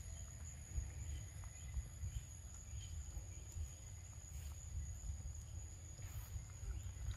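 Steady high-pitched insect drone in two thin unbroken tones, over a low rumble, with a few faint ticks and chirps scattered through.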